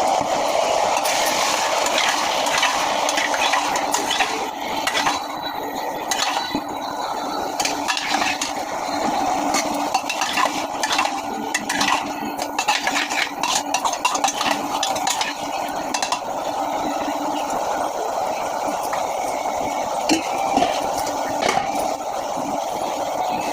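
Vegetable curry being stirred in a pan with a metal utensil: repeated clinks and scrapes against the pan over a steady frying hiss.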